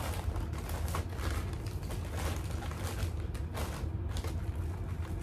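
Rustling and clunking as plastic-wrapped snack packages are handled and moved about in a storage basket: a string of short handling noises over a steady low hum.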